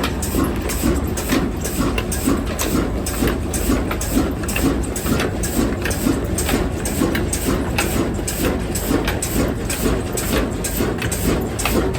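Diesel engine running at a slow, even beat of about three beats a second.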